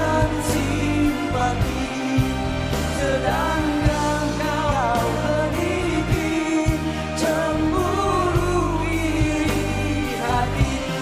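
Live band music: a sung melody over bass and a steady drum beat.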